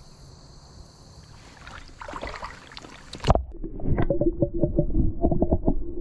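Creek water sloshing and splashing softly. About three seconds in the sound cuts abruptly to a muffled rumble with a quick run of clicks and a steady hum, as if the microphone were submerged or covered.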